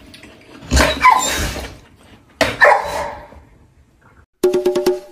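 A dog vocalising in two short bursts, about a second in and again at about two and a half seconds. Near the end a music track with an even beat starts.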